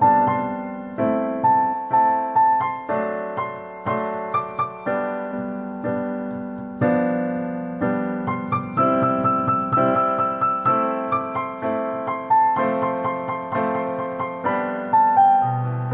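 Background piano music: notes and chords struck one or two a second, each fading away before the next.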